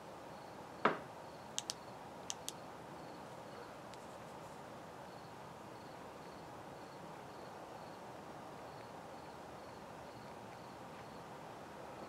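Faint night chorus of crickets, one chirping in a steady, regular pulse. About a second in there is a single knock, then two quick pairs of sharp clicks.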